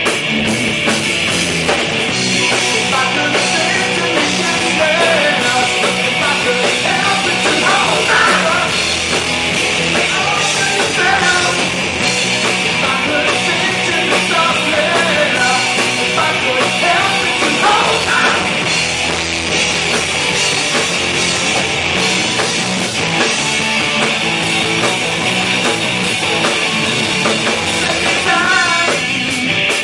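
A rock band playing live, loud and continuous without a break.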